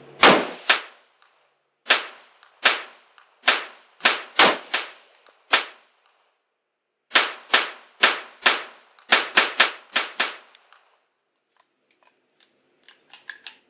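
Arsenal SLR-106UR AK-pattern pistol in 5.56/.223 fired semi-automatically, about seventeen sharp shots in quick strings with a pause of about a second and a half midway. Near the end come a few faint metallic clicks as the pistol is handled.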